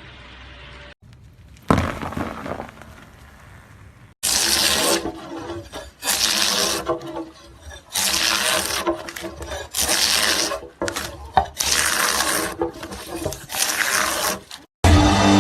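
Repeated rasping strokes, each lasting about a second and coming roughly every one and a half to two seconds, like something being scraped or filed. A single shorter stroke comes near the start.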